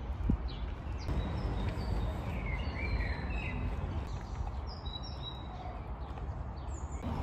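Outdoor ambience: a steady low rumble with faint bird chirps now and then.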